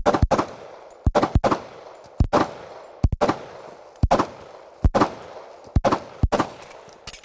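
Rapid pistol fire from two Springfield Armory TRP 1911 pistols shooting at the same time: about fifteen sharp shots, mostly in quick pairs roughly a second apart.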